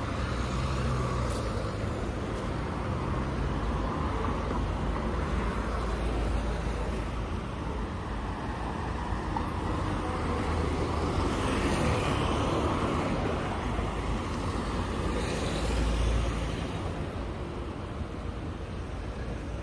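Road traffic going by: a steady low rumble of car and bus engines and tyres, swelling louder as vehicles pass about twelve and sixteen seconds in.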